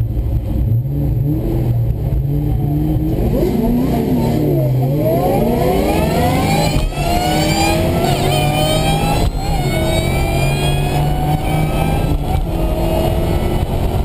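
Two Ford SVT Cobra Mustang V8s drag racing side by side, heard from inside one car: the engine note wavers off the launch, then climbs hard. It drops back and climbs again at each of about three gear changes.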